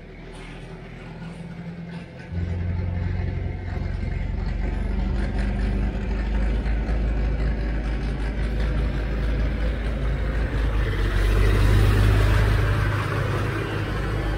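Massey Ferguson 1105's six-cylinder Perkins diesel engine running as the tractor pulls out and drives past, taken gently to warm the engine before an oil change. It steps up in loudness about two seconds in and is loudest near the end as the tractor passes close by.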